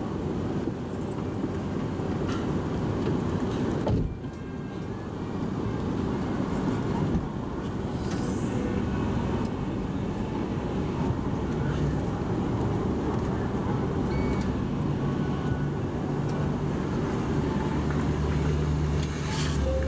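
Toyota Voxy minivan's engine running at low speed as the car creeps forward, with a sharp knock about four seconds in and a steadier low hum settling in over the second half.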